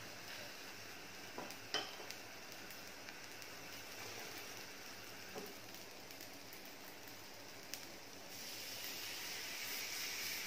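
Garlic butter sizzling faintly under pav buns toasting in a frying pan, with a few light taps as the buns are handled. The sizzle grows louder near the end as a bun is pressed into the butter.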